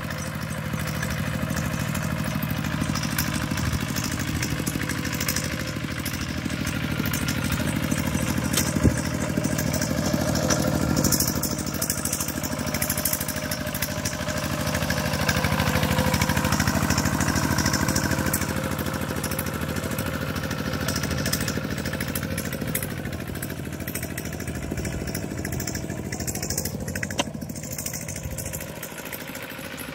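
Kubota RT120 walk-behind tractor's single-cylinder diesel engine running steadily while it pulls a plough, louder as it passes close about halfway through and fading as it moves away near the end.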